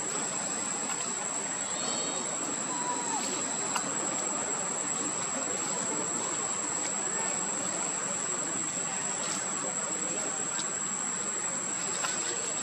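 Steady outdoor ambience: an even hiss under a constant high-pitched drone, with a few faint short chirps near the start and scattered light ticks.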